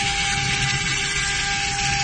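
CNC router spindle running with a steady whine of several tones while its bit cuts into a cylindrical workpiece turned on the rotary axis, with a continuous hiss of cutting.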